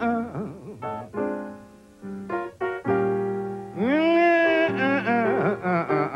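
Background music led by piano, with a melody that slides up into a long held note about four seconds in.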